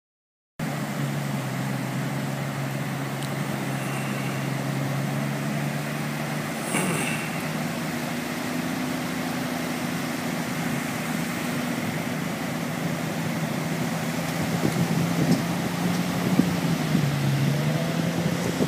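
Amphibious personnel carrier's engine running steadily as the vehicle drives out of the surf and along the beach, starting about half a second in. Its pitch shifts slightly partway through and dips and rises again near the end.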